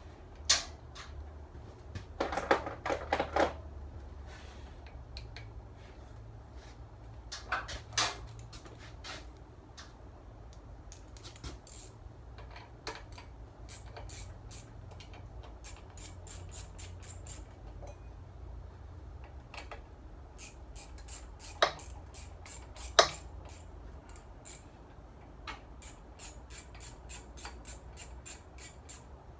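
Metal tools clinking and knocking against a small Briggs & Stratton engine, with several runs of quick, even clicking like a socket ratchet backing out the bolts that hold the flywheel screen.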